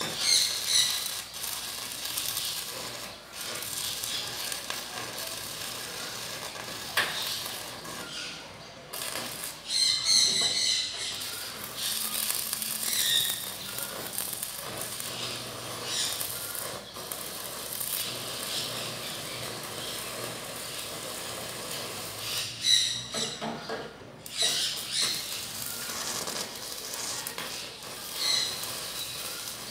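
Gas cutting torch hissing steadily as its flame works on a steel frame, with several brief, louder high-pitched bursts.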